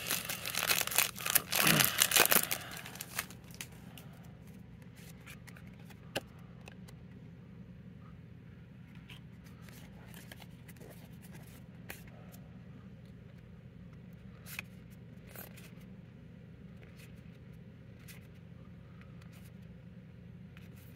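Foil booster-pack wrapper crinkling and tearing open by hand for about the first three seconds, followed by a few faint clicks of trading cards being handled over a low steady hum.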